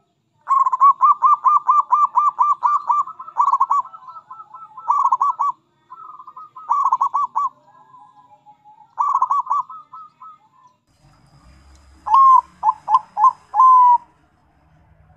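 Zebra doves cooing. A fast run of about a dozen staccato coos, about five a second, is followed by several shorter bursts of coos, and near the end a different dove gives four separate coos.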